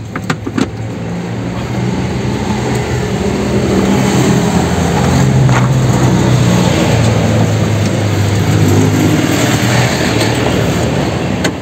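Nissan Urvan van's engine running steadily, its pitch drifting slightly and getting louder around the middle. A few sharp clicks come in the first second.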